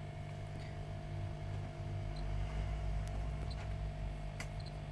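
Steady low electrical hum, with a few faint clicks near the end.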